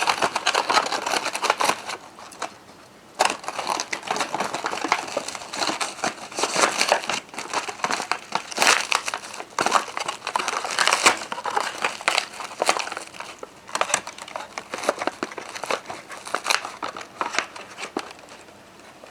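Mylar meal pouch crinkling and rustling as freeze-dried pot roast discs are pushed into it, with crunchy crackles and a short lull about two seconds in.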